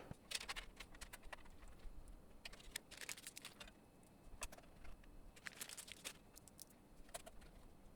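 Faint, irregular small clicks and ticks of a screwdriver driving small screws that hold a motherboard to the case's standoffs, tightened only until snug.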